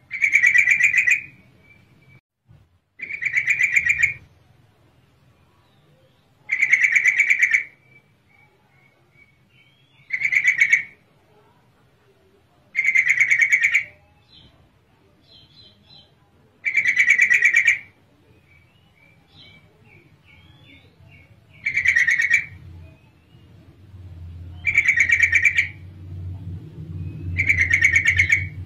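Female yellow-vented bulbul giving a rapid chattering call about a second long, repeated nine times every three to four seconds, with faint short chirps in between: a female calling to males. A low rumble builds underneath near the end.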